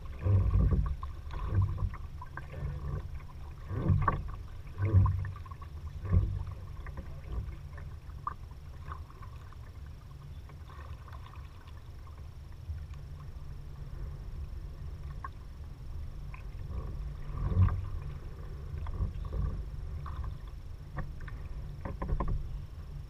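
Kayak paddle dipping and splashing in the water, several strokes in the first six seconds, then fewer with a couple more near the end, over a steady low rumble.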